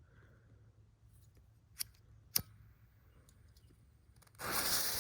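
A lighter clicks twice without catching. Then, near the end, a loud steady hiss starts suddenly as the firework spinner's fuse catches and sizzles.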